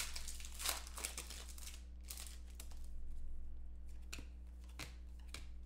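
Foil trading-card pack wrapper crinkling and tearing as it is opened by hand, followed by rustling and a few sharp clicks as the cards are handled, over a steady low hum.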